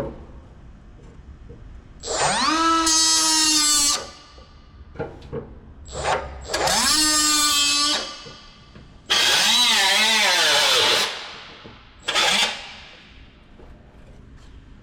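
Handheld power cutting tool cutting the sheet metal of a car's quarter panel, in three runs of about two seconds each. Each run starts with a rising whine that then holds steady; the third wavers in pitch, and a short fourth burst follows near the end.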